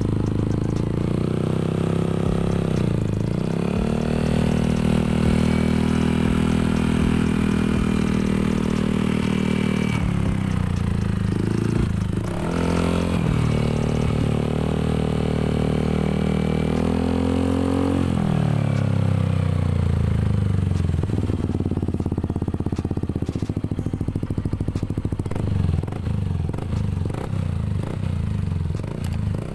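Yamaha Aerox 155's single-cylinder four-stroke engine running through an F2Racing Hexagon Long stainless-steel aftermarket exhaust. It is held at raised revs with the pitch swinging up and down several times, then falls away about two-thirds of the way through to an idle with an even pulsing beat.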